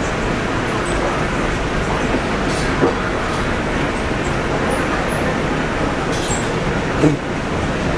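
Steady traffic noise, with two brief knocks about three and seven seconds in.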